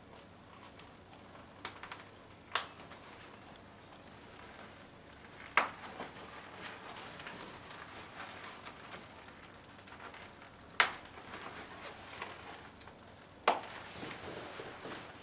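A person moving in a stiff PVC cape and high heels: soft rustling with five sharp clicks and taps a few seconds apart, the loudest about eleven seconds in.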